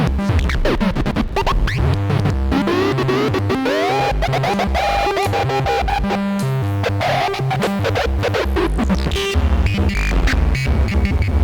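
Analogue synth arpeggio played through a Djupviks Mörser stereo WASP-type filter, with the module's clocked digital noise fed into the right-hand channel. Stepped notes sound under dense crackling, glitchy noise and sliding tones.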